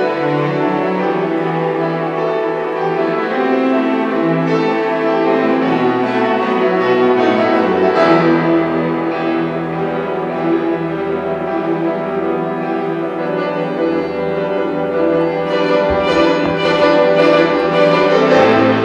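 Classical music played by a piano with a string orchestra, sustained chords and melody lines at a steady, fairly loud level.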